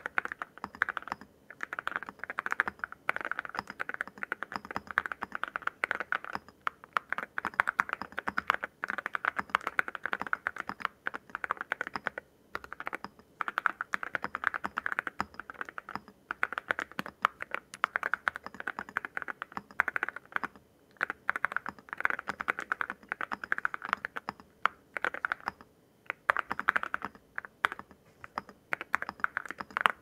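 Fast, steady typing on a Zoom75 mechanical keyboard with WS Morandi linear switches and white alumina-ceramic Cerakey keycaps. The keystrokes come in dense runs broken by a few short pauses, with the low, thocky keystroke sound of the ceramic caps.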